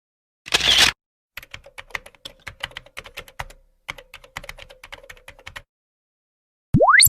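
Computer keyboard typing sound effect: two runs of rapid key clicks with a short pause between them. It is preceded by a brief burst of noise and followed near the end by a quick, steeply rising whistle.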